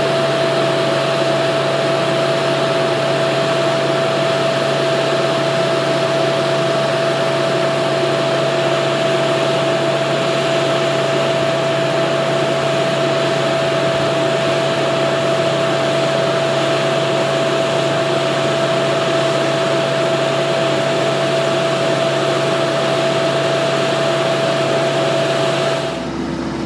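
A steady machine-like drone: an even hiss with a constant humming tone, unchanging throughout, that cuts off abruptly about a second before the end.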